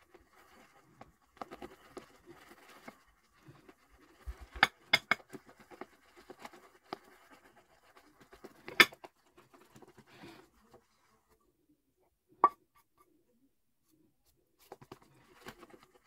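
A shaving brush whipping Stirling Executive Man shave soap into lather in a bowl: soft, irregular wet swishing and scratching of bristles, with a few sharp clicks, the loudest about nine seconds in, and a pause of a few seconds near the end. The sound is sped up.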